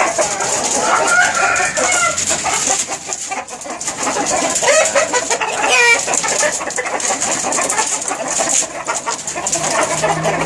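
Chickens clucking and calling while they feed, with an irregular run of short calls. A steady high hiss lies behind them.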